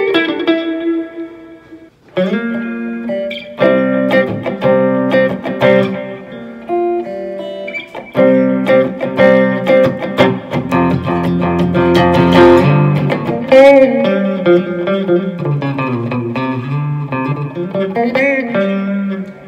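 Fender Stratocaster electric guitar played clean through an amp, with the neck and bridge pickups switched in together. A note rings out and fades, then from about two seconds in come picked notes and chords, with string bends and vibrato in the second half.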